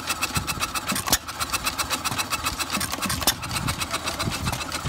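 Vintage hopper-cooled stationary engine running with a rapid, even clatter of clicks and two louder bangs, about a second in and just past three seconds: it fires only every few turns and coasts on its flywheels in between.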